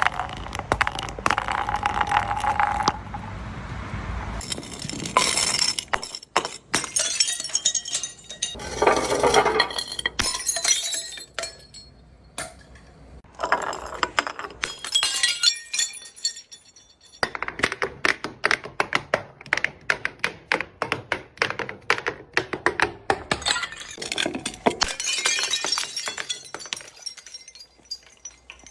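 Glass bottles breaking and shattering, with clinking shards, broken up by runs of fast crackling crunches as things are crushed.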